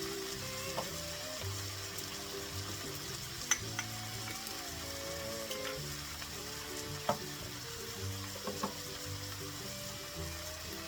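Food frying in a pan with a steady sizzle, with a few sharp clicks of a utensil stirring against the pan, the loudest about three and a half and seven seconds in.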